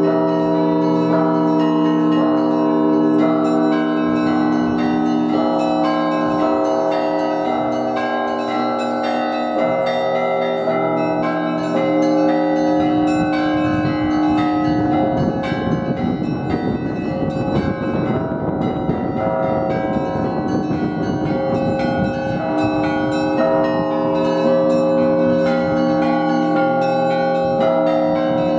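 Russian Orthodox church bells ringing together in a continuous peal: the long tones of several bells overlapping under rapid strikes of smaller bells, which come thick and fast for several seconds in the middle before the ringing settles again.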